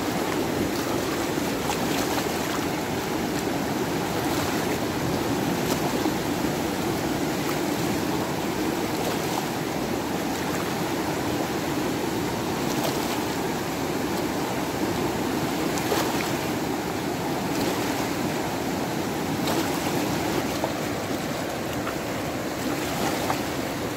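Steady rush of flowing river water, even and unbroken, with a few faint short clicks over it.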